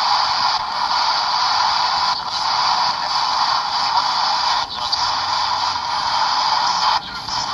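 Shack Hack ghost box, a portable Radio Shack radio modified to scan through the stations without stopping, putting out a steady, loud hiss of static. The hiss drops out briefly a few times as the tuner sweeps.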